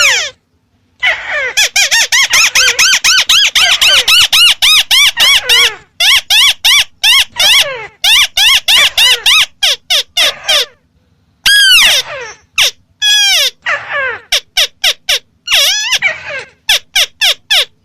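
White-browed crake (Amaurornis cinerea) calling: a fast chattering run of harsh, arched notes for about four seconds, then shorter bursts and single notes.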